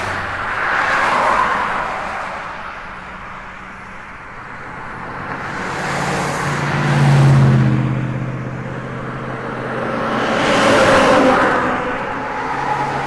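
Jet airliner with rear-mounted engines on the runway, its engine noise swelling and fading several times. A lower engine hum is loudest about seven seconds in.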